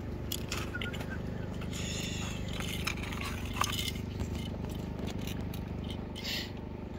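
Open-air ambience: a steady low rumble with scattered light clicks and faint distant voices.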